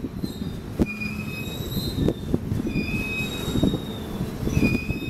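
Rail-carrier flatcars loaded with long steel rails rolling past, their steel wheels rumbling with short high squeals recurring every second or so and a few sharp clanks.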